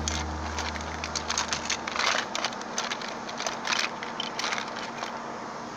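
Small plastic Littlest Pet Shop figures being moved and tapped along a hard surface, making scattered light clicks and handling rustles. A low, humming tone fades out during the first two seconds.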